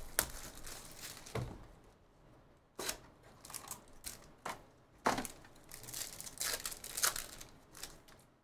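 A sealed trading card box being torn open and its plastic-wrapped contents unwrapped: a run of short tearing and crinkling sounds.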